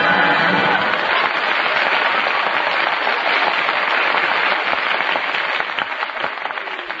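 Studio audience applauding in an old radio broadcast recording, a steady wash of clapping that eases off slightly near the end.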